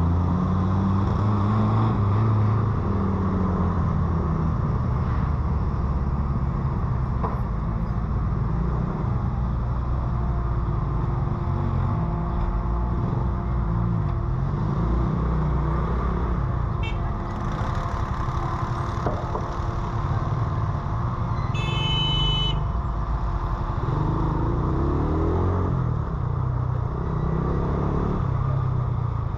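Motorcycle engine running in city traffic, its pitch rising and falling as the bike speeds up and slows. A short car-horn toot sounds about three-quarters of the way through.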